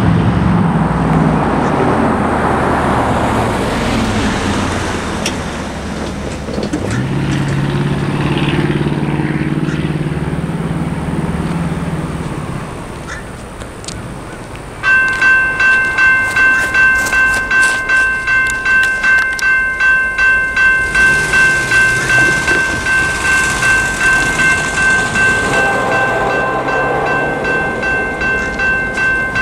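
A General Signals Type 2 electronic crossing bell starts up about halfway through and rings with a steady pulsing tone, about two strokes a second: the crossing signals have activated for an approaching train. Before it starts, road traffic can be heard passing.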